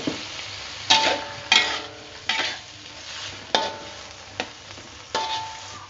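Metal spatula scraping and clanking against a steel wok as sliced okra is stir-fried. There are about six strokes, each with a short metallic ring, over steady sizzling.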